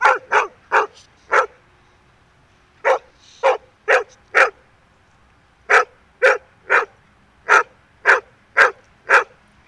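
Golden retriever barking: about fifteen short, sharp barks in three quick runs with brief pauses between them. These are demand barks, calling for something to be thrown.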